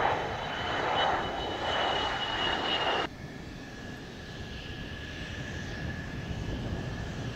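Mitsubishi F-2 fighters' F110 turbofan engines running with a high, steady whine over jet noise. About three seconds in, the sound drops suddenly to a quieter, steady jet whine at a lower pitch.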